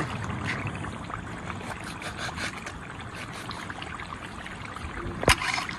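Plastic dairy-cream pouch being handled and slit open with a knife: faint crinkles and small ticks, then one sharp click a little before the end. Underneath, a steady watery hiss from the curry simmering in the kadai.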